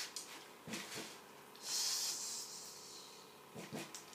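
A person imitating an angry cat: one hiss lasting about a second, with a few soft crunches and mouth clicks of crisps being eaten before and after it.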